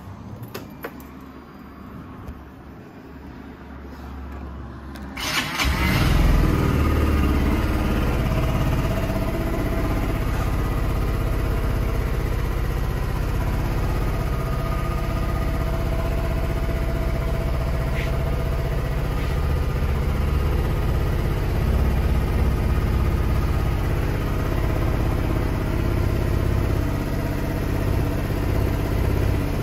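Yamaha Vity 125 scooter's air-cooled, fuel-injected 125cc four-stroke single: a few faint clicks as it is switched on, then the engine starts about five seconds in and idles steadily.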